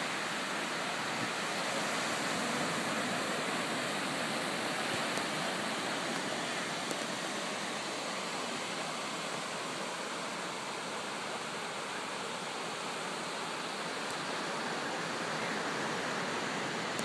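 Ocean surf washing onto a sandy beach, a steady unbroken hiss of breaking waves.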